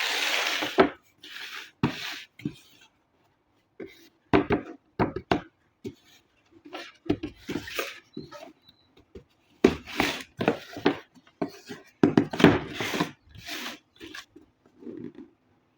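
Hands handling and opening the toy's packaging: irregular clicks, knocks and rustles of cardboard and plastic, with a denser run of rustling and tapping about ten to fourteen seconds in.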